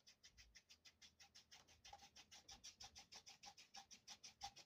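Faint scratching of a paintbrush scrubbing oil paint across canvas in quick, even back-and-forth strokes, a little stronger from about two seconds in.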